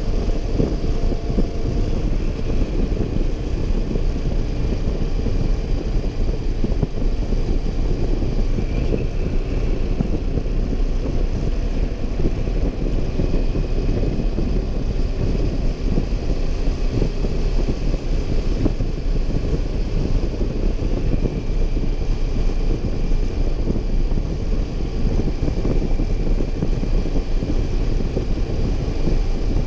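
Motorcycle riding at road speed: steady engine noise mixed with wind noise on the camera microphone.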